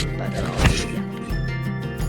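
Background music with held notes and a bass line, with one sharp hit a little past half a second in.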